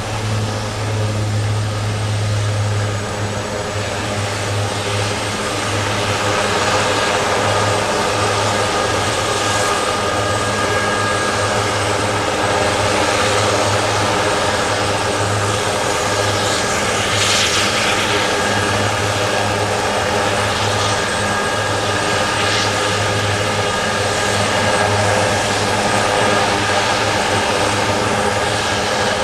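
Aerospatiale AS332L1 Super Puma helicopter running on the ground with its rotors turning: a steady high turbine whine from its twin Turbomeca Makila turboshafts over a pulsing low rotor beat. The whine settles slightly lower in the first few seconds.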